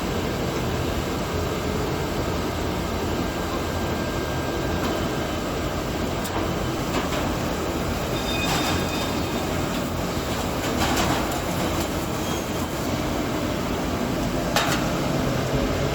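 Industrial machinery running: a steady rumble with a few sharp clatters about eight, eleven and fifteen seconds in.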